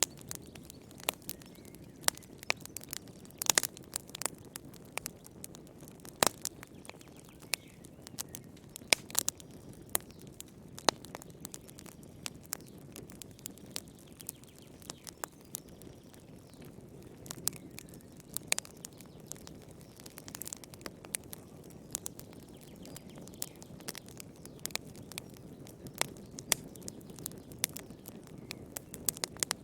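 Wood fire crackling in a fireplace: irregular sharp pops and snaps, some much louder than others, over a steady low background noise from the burning.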